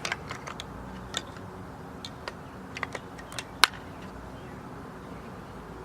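Scattered light clicks and taps of hand handling, about a dozen spread irregularly, the sharpest about three and a half seconds in, over a steady low hum.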